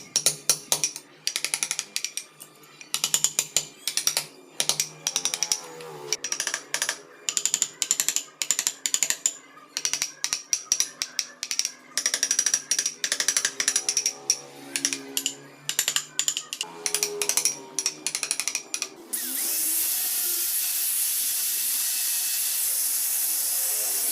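Hand carving tools working wood: quick runs of sharp clicks and cuts with a bright, ringing edge. About nineteen seconds in, these give way to a steady hiss.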